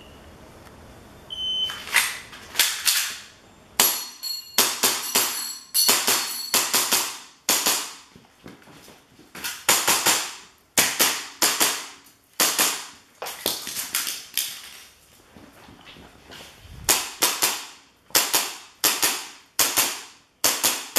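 Airsoft pistol firing dozens of sharp shots in quick strings with short pauses in between. A shot timer's short start beep sounds just before the first shots.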